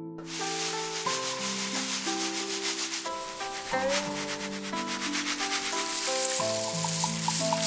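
A dense, steady rattle of many dry roasted sunflower seeds shifting and pouring, a fine hiss of tiny clicks, over background music.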